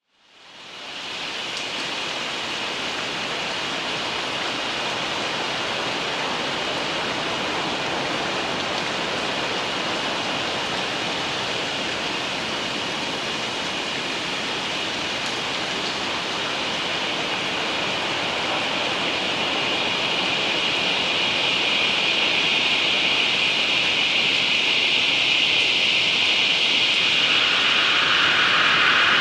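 Omnisphere 2 synth patch playing a dystopian rain texture built from a heavy-rain field recording, layered with a processed copy, a Juno-60 sub and noise. It is a dense rain hiss with a bright band on top that fades in over the first second and slowly grows louder. A couple of seconds before the end, a second, lower band of hiss comes in.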